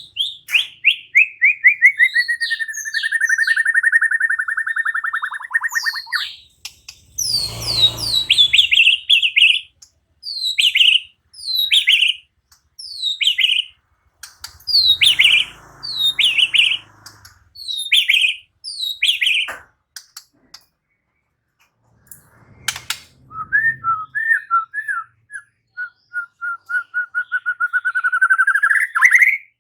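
White-rumped shama (murai batu) singing a varied, loud song. It starts with a fast trill that slides down into a long held whistle, goes on to a run of sharp down-swept notes about one a second, pauses briefly, and ends with a rising trill. Two short bursts of noise sound around the middle.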